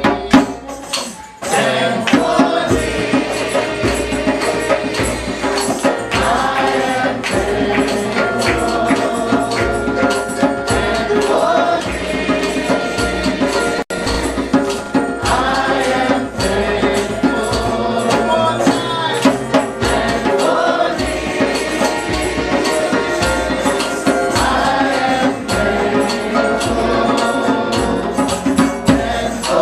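A group singing a song together, accompanied by a hand drum beaten in a steady rhythm.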